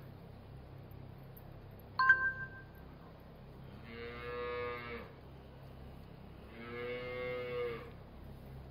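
A cow mooing twice, each call about a second long and fairly level in pitch, with a pause of about two seconds between them. About two seconds in, a single sharp metallic clink with a short ring.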